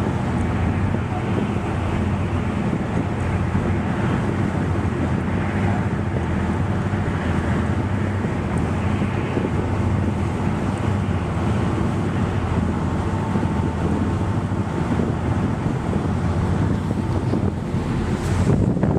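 Steady wind rushing across the microphone, with a low, even rumble underneath.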